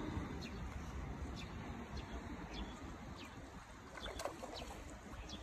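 Birds chirping in short, scattered calls over a low, steady rumble.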